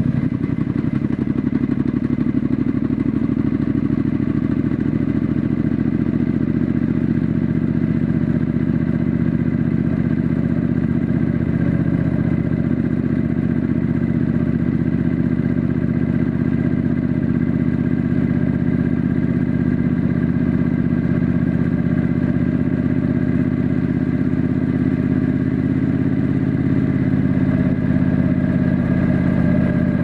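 Triumph Scrambler 900's parallel-twin engine running steadily at cruising speed, heard from the rider's seat, growing a little louder near the end.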